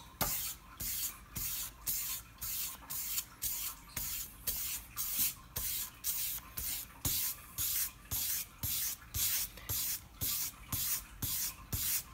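Sandpaper on a hand sanding block rubbed back and forth across an axe's bit to sharpen the edge, a steady series of rasping strokes a little over twice a second.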